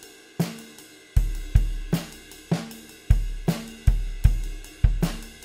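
Drum kit groove: kick drum and snare played under a ride cymbal timekeeping pattern in the 'ta-ta-ta' variation. The groove picks up about half a second in, with a steady run of kick thumps and sharp snare and cymbal hits.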